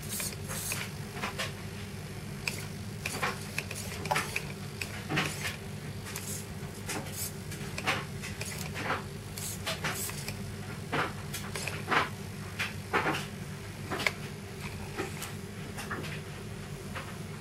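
MeArm acrylic robot arm moving under joystick control: its small hobby servos and perspex joints give irregular sharp clicks and clacks, one or two a second, over a steady low hum.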